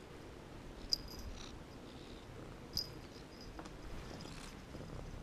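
Two light metallic tinkles about two seconds apart, each ringing briefly, from the small metal tag on a cat's collar as the cat moves about, with soft scuffling between them.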